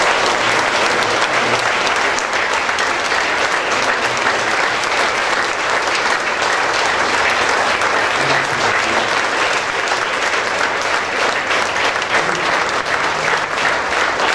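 A congregation applauding, a dense, steady round of clapping that keeps going without a break.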